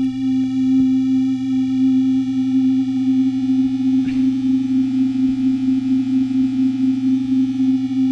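Serum software synthesizer holding one steady note from a square-wave oscillator stacked with unison voices while the unison detune knob is turned, the detuned voices beating against each other in a wavering warble. Detuned this far it no longer sounds right, like a really bad science fiction movie.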